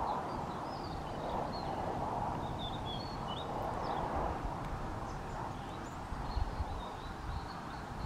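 Outdoor ambience: a steady rushing background noise with uneven low rumbling, and faint, scattered high chirps and twitters of small birds.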